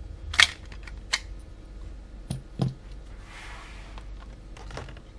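Handling noises from a battery-powered soldering iron being opened and its AA batteries taken out: a few separate clicks and knocks of plastic and metal, the sharpest about half a second in, two duller knocks a little past two seconds, and a short soft rustle around three seconds.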